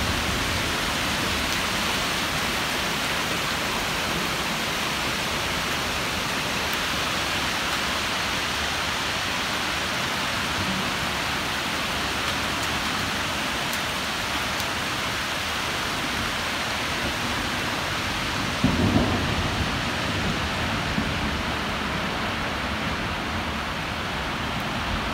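Rain mixed with hail falling in a steady hiss, with one brief low thump about three quarters of the way through.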